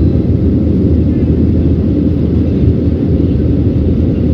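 Steady low rumble of a Boeing 737-800 in flight, heard from a rear cabin seat: the CFM56-7B engines and airflow over the fuselage make an even, unbroken roar.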